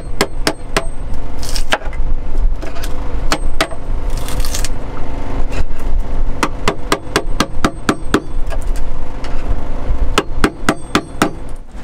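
A chisel being struck again and again with a hammer, chipping out the fibreglass casing around a boat's chainplate. The taps are sharp and come at an irregular pace, with a couple of brief scrapes among them.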